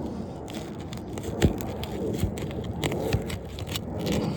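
Brittle three-tab asphalt shingles being pried up at the seal line: scraping and crackling, with a few sharp knocks, the loudest about a second and a half in.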